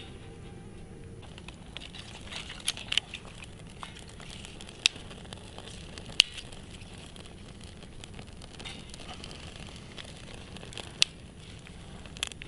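Small wood fire in a wood-chip camp stove crackling, with a steady hiss and a handful of sharp pops from the burning wood.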